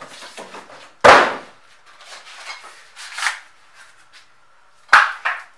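Cardboard packaging being handled and cleared away: two sharp knocks about four seconds apart, the first the louder, with cardboard rustling and scraping between them.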